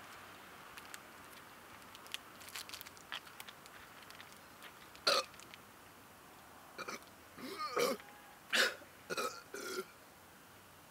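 A person burping about six times in the second half, short separate burps, after a few faint clicks.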